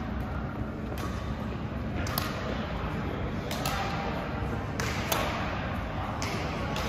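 Badminton rackets hitting shuttlecocks on several courts: about eight sharp, irregular pops, some in quick pairs, ringing in a large hall. Faint chatter underneath.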